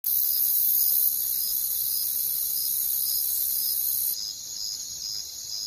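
High-pitched insect chorus chirring, with a regular pulse about two to three times a second. It drops in level about four seconds in.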